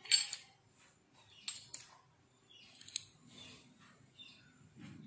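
Light clicks and clinks of miniature stainless-steel utensils and a small wooden rolling pin being set down and shifted on a stone floor: a few separate taps with quiet handling between.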